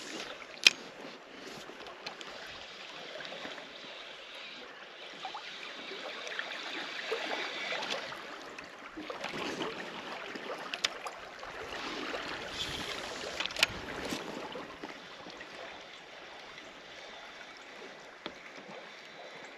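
River current rushing and lapping against a kayak hull, swelling and fading, with two sharp clicks: one just under a second in, one about two-thirds through.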